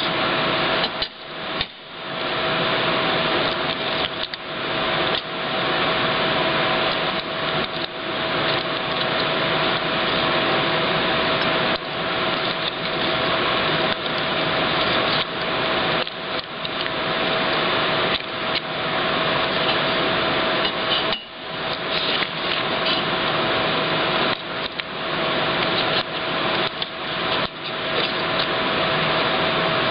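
Loud, steady shop machinery noise with a constant mid-pitched hum, broken by frequent brief dips. Knocks and rustles from hands handling a steel plate and backing tape come through over it.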